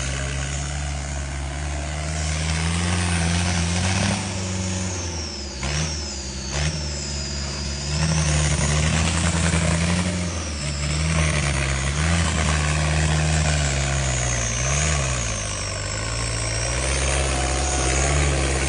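Off-road vehicle engine running under load, its revs rising and falling again and again, with a thin high whine following the revs. There are a few brief breaks about six seconds in.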